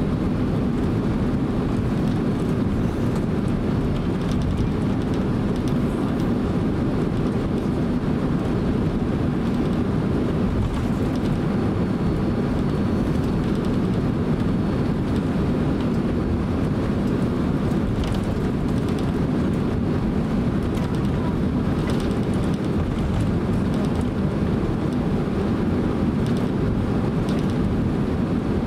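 Cabin noise inside a Boeing 767-300 taxiing: a steady low rumble from the jet engines at taxi power and the wheels rolling on the taxiway, with a few faint ticks.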